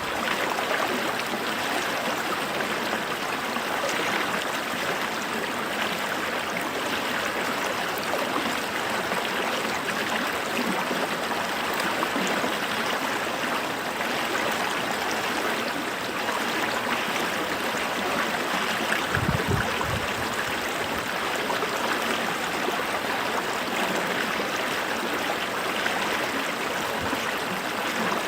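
A small creek running steadily over stones, a continuous babbling and gurgling rush of water. About two-thirds of the way in there is a brief low rumble.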